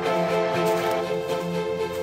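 Background music: held, sustained chords that change every second or so.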